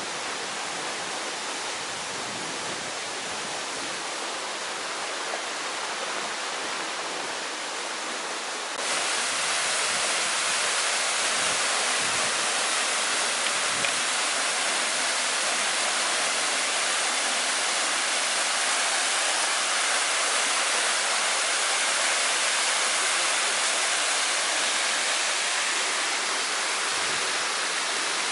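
Steady rush of a waterfall and creek water, growing louder in one step about nine seconds in.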